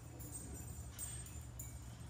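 Quiet room tone with a steady low hum, and a few faint, brief high ticks or jingles about a second in.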